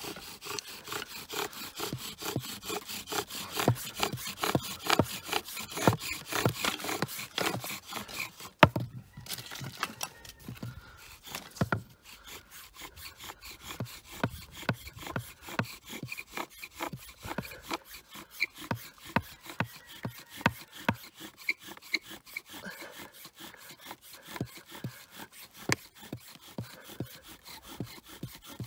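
Bow drill worked hard: a sage spindle grinds in a sage hearth board with quick, even back-and-forth strokes of the bow. The strokes break off briefly about nine seconds in, then resume more quietly. The friction is building a coal in the notch, which starts smoking on its own.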